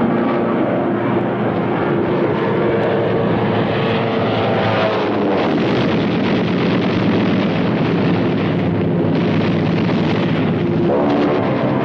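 Steady drone of the piston engines of a formation of B-17 Flying Fortress heavy bombers in flight.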